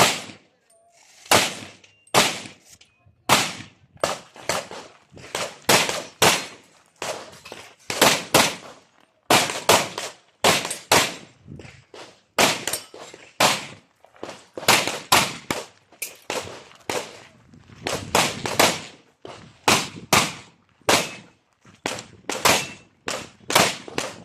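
Handgun fired string after string, mostly as quick pairs of shots with short pauses between, during a practical-shooting stage run.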